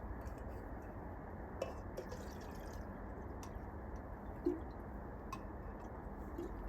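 Coleman Feather 400 camp stove burner running with a steady hiss, with a few faint ticks and drips.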